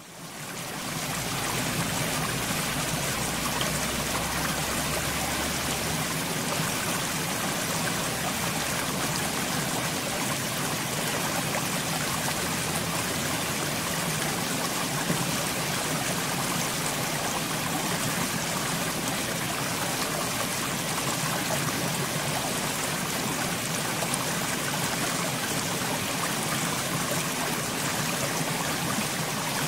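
Steady flowing stream, water running and trickling over rocks, fading in over the first second or so and then holding even.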